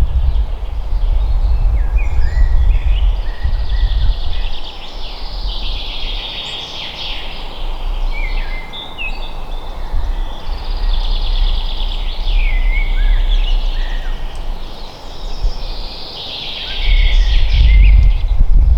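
Several songbirds singing together, with rapid trills and short downward-sliding whistles. Under them is a low wind rumble that is loudest in the first few seconds and swells again near the end.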